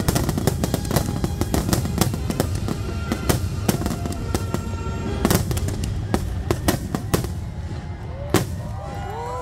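Aerial fireworks shells bursting overhead in a dense, rapid barrage of bangs and crackling, which thins out with one last loud bang. Near the end a crowd starts whooping and cheering.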